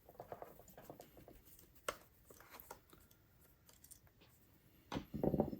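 Small clicks and scraping from handling the parts of an HO scale model locomotive by hand and with small tools, with one sharp click about two seconds in and a louder rustling scrape near the end.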